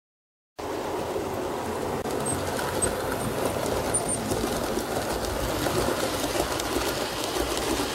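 H0 scale model train running over the layout's track: a steady rumble of the wheels and motor on the rails, with a few faint high squeaks. It starts abruptly about half a second in.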